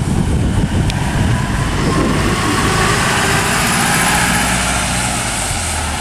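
Double-decker bus driving past on a concrete guided-busway track: a steady low engine hum with tyre noise that swells about two to four seconds in, then eases as the bus moves away.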